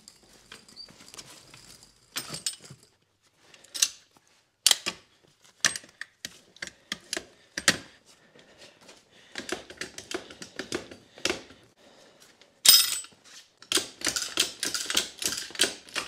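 Harbor Freight steel wheel dolly being fitted around a tractor tire: scattered metal clanks and clicks as its arms and toothed bar are pushed together. The clicks come thicker and quicker in two runs, in the middle and near the end, as the dolly's pedal is worked.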